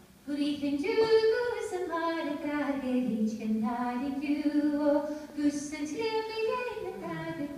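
Unaccompanied singing in a high voice, a slow melody of held notes that starts about a quarter second in.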